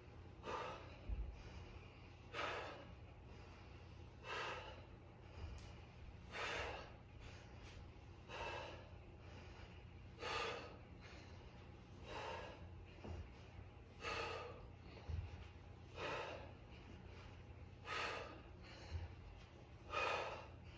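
A man breathing hard from exertion during an ab exercise, with a short, forceful exhale about every two seconds in time with each rep, over a faint low hum.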